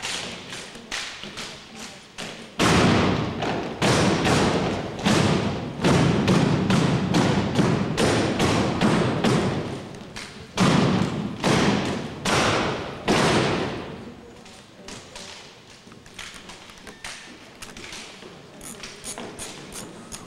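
Armed drill team working their drill rifles: sharp slaps of hands on rifles and thuds of rifle butts and boots on the gym floor in a quick rhythm, with the hall ringing after each hit. The hits come loudest and thickest from a few seconds in until about two-thirds of the way through, then drop to lighter, faster taps.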